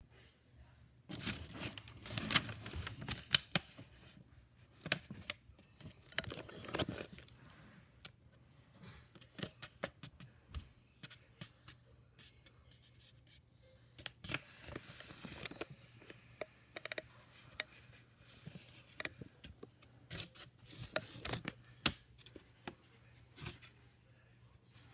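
Handmade packaging being handled and opened by hand: rustling and scraping with many sharp clicks, in several busy bursts with quieter gaps between.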